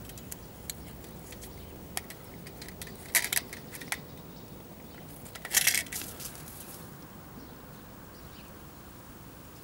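Wire-mesh live-catch mouse trap rattling and clinking as its metal door is opened to let the mouse out: a few light clicks, then two short, loud bursts of metallic rattling about three seconds and five and a half seconds in.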